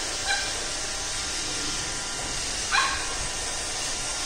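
Pembroke Welsh Corgi puppy giving two short, high barks, a faint one just after the start and a louder one about three seconds in, over the steady whir of a Roomba robot vacuum running.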